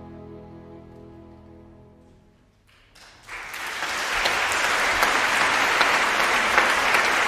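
Slow, sustained instrumental music fades out. About three seconds in, applause starts and carries on loudly with dense clapping.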